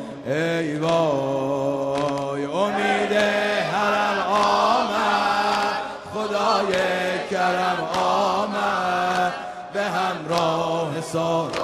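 Male reciter singing a Persian Muharram noha (dodameh lament) into a microphone: a long, ornamented vocal line of held notes that waver and step in pitch.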